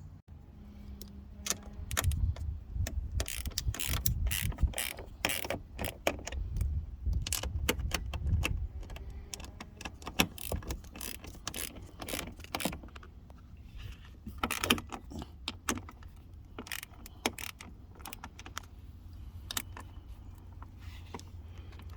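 Hands working on a pickup's door and side-mirror assembly: a string of sharp clicks and knocks, with a low handling rumble over the first half, fewer clicks after that.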